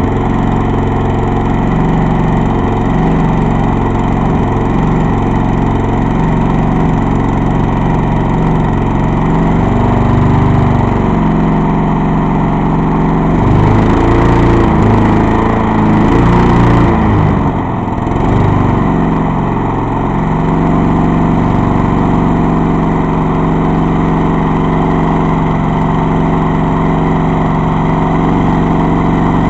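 Small gasoline engine of an old Craftsman walk-behind lawn mower running steadily; about a third of the way in its speed wavers up and down for several seconds and briefly sags, then settles back to an even run.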